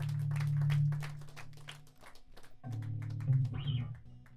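Live rock band of electric guitar, electric bass and drums playing the closing chords of a song: a loud held chord with rapid, even hits fades out about two seconds in, then another chord rings briefly and stops just before the end.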